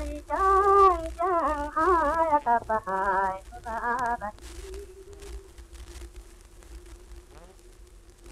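Music: a single wavering melody line with strong vibrato, ending about four seconds in, after which a faint steady held tone lingers over a low hum.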